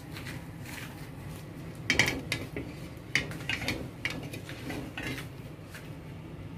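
A frying pan being tilted and shifted on a gas stove's metal grate to spread hot oil, giving a run of clinks and scrapes of metal on metal from about two seconds in, loudest at the start. A steady low hum runs underneath.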